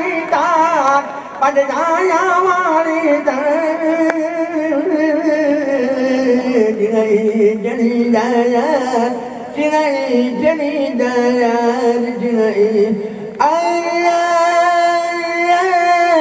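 A solo voice singing a long wordless melismatic phrase into a stage microphone. It opens with wide vibrato, sinks slowly in pitch through the middle, and ends on a long held note.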